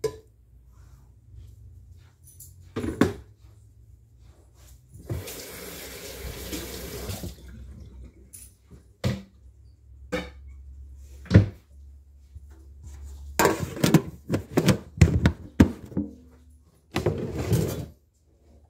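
Kitchen sounds: about two seconds of running water a few seconds in, then a string of sharp knocks and clatters of dishes and a cabinet being handled. A low steady hum runs underneath and stops shortly before the end.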